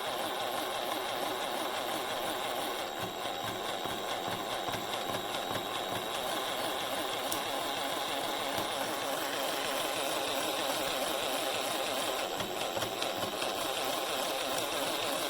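Cerycose 18V brushless cordless jigsaw running at a steady speed, its motor and reciprocating blade making a constant buzz that does not rise or fall.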